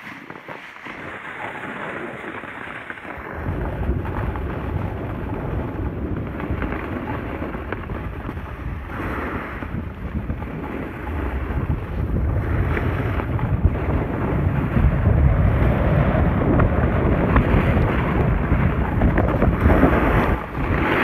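Wind buffeting the microphone while a snowboarder rides a groomed run, with the hiss of the board sliding over the snow. The wind rumble comes in strongly about three seconds in and grows louder toward the end.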